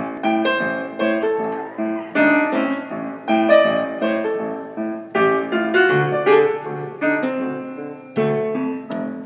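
Solo piano playing a slow blues, chords struck about once a second, each one ringing and fading before the next.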